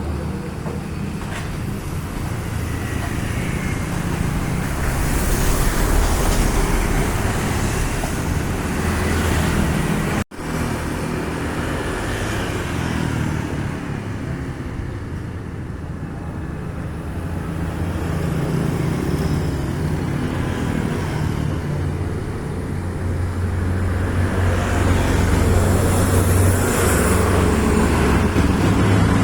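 Road traffic of large vehicles passing: a steady low engine rumble with tyre and road noise that swells as vehicles go by, a few seconds in and again near the end. The sound drops out for an instant about ten seconds in.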